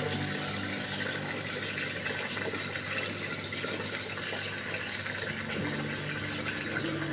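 Water flowing and trickling steadily inside the PVC pipe of a DFT hydroponic system as the nutrient solution circulates.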